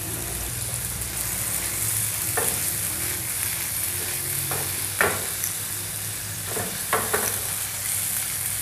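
Boneless chicken cubes sizzling in hot oil in a nonstick frying pan, the raw meat being lightly fried. A utensil knocks and scrapes against the pan a few times as the pieces are stirred, the sharpest knock about five seconds in.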